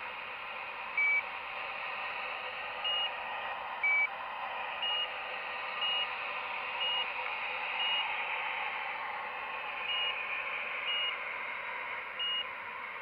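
Radio-controlled metal excavator running with a steady mechanical hiss while it swings, and short electronic warning beeps sounding about once a second; the first two beeps are lower in pitch than the rest.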